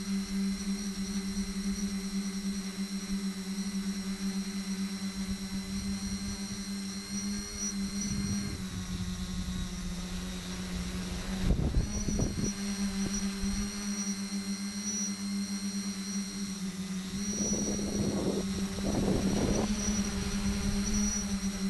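Tricopter's electric motors and propellers running, a steady hum with a high whine over it that shifts slightly in pitch about 8 seconds in and again around 17 seconds. Gusts of low rumbling noise come in around 12 seconds and again around 18 to 20 seconds.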